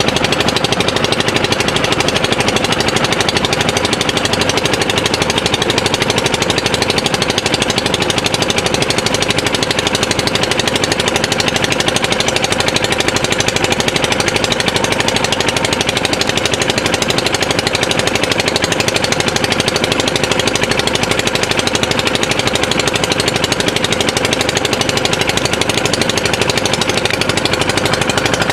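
Small diesel engine of a wooden country boat running steadily under way, a fast, even chugging with a steady hum over it.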